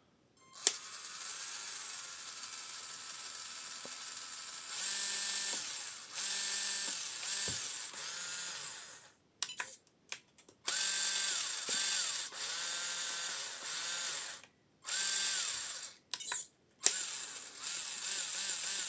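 A small electric motor drives a WPL two-speed RC gearbox in a bench test, with a geared whine. It runs steadily for the first few seconds, then in about six short throttle bursts, each whine rising, holding and dropping away. There are short clicks in the gaps between the runs.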